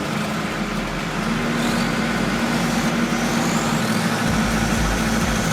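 Heavy machinery engine running steadily under load, with a faint high whine that rises in pitch partway through.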